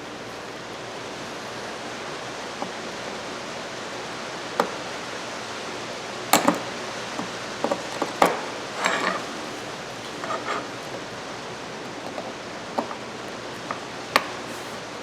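A handful of sharp metal clicks and small taps as pliers work at the retaining clip of a Craftsman 3/8-inch ratchet head, over a steady hiss.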